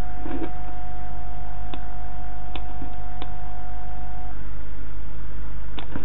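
Steady low electrical hum under an even hiss, with one steady high tone held for about four seconds and a few faint clicks.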